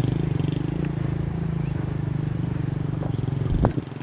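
A small motorcycle engine running steadily with an even pulsing hum, easing off toward the end. There is a single thump about three and a half seconds in.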